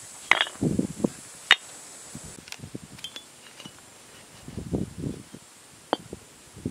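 A few sharp knocks and light clinks, as of hard objects being handled, with soft rustling between them.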